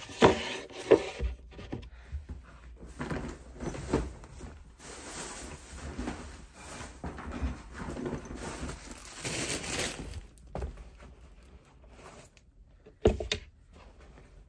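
Shoes and bags being handled and set down on a shelf: a few thunks near the start, a stretch of bag rustling through the middle, and one more thunk near the end.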